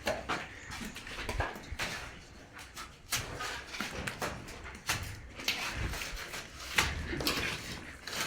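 Irregular knocks and clicks of building work, a dozen or so sharp strikes at uneven intervals.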